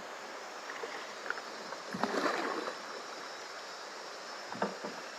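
River water rushing and lapping along the hull of a wooden canoe being poled upstream. A louder splash comes about two seconds in, and a short knock near the end.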